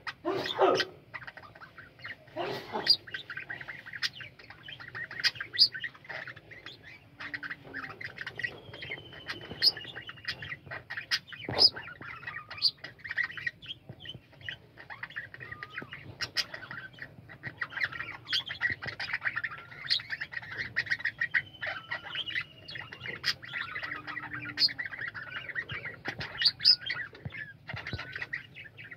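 A colony of budgerigars calling together: a steady mass of many short, overlapping chirps and warbles, with now and then a longer falling whistle.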